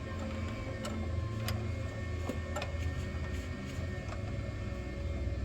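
A few light metallic clicks and taps as a bolt and nut are handled and worked into a snowblower's reverse linkage, over a steady low hum.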